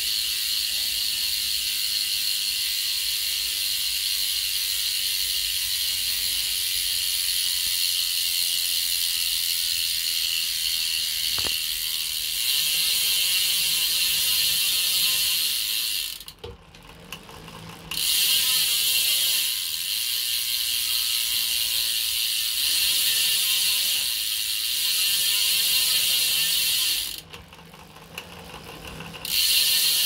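Rear freehub of a Superteam full-carbon road wheel buzzing as the wheel spins freely: a fast, steady ratchet of the pawls. It cuts out twice for about two seconds, around the middle and near the end, then resumes.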